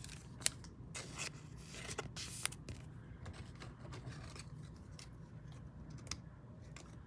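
Trading cards and pack wrappers being handled: faint scattered clicks and light scrapes, mostly in the first two and a half seconds.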